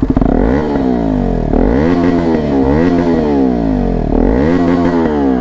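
KTM Duke 250 BS6's single-cylinder engine revved repeatedly through an SC Project aftermarket silencer on a cut-in bend pipe (not a full system), its pitch rising and falling in several throttle blips.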